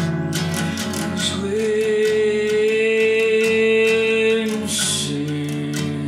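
Acoustic guitar picked in a steady flowing pattern, with a man's voice holding one long sung note for about three seconds in the middle.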